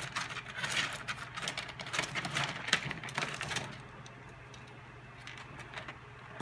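Rapid crackling and clicking of a ferret scrabbling through loose cage bedding as it handles a caught mouse, dying down to a few scattered ticks a little under four seconds in.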